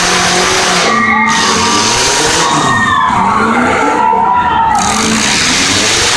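Demolition derby cars' engines revving and running loudly together, their pitches rising and falling over a constant noisy roar.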